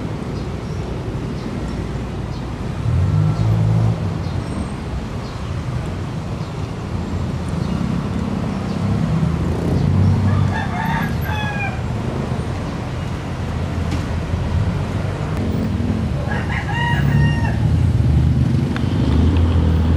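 A rooster crowing twice, about ten and about seventeen seconds in, each crow ending in a falling note, over a steady low rumble of vehicle engines and traffic.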